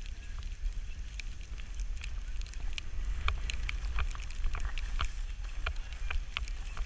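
Skis sliding over packed snow, with many short irregular scrapes and clicks from the edges, over a low wind rumble on the microphone.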